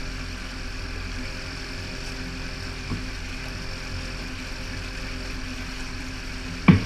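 Boat's outboard motor running steadily under way, with water churning in the wake. A sharp thump near the end.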